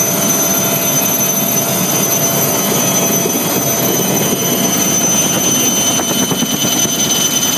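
Turbine helicopter in flight heard from inside the cockpit: a steady engine and rotor noise with a constant high-pitched turbine whine over it.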